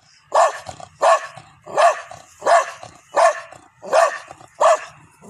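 Gultair dog barking loudly seven times in a steady rhythm, about one and a half barks a second.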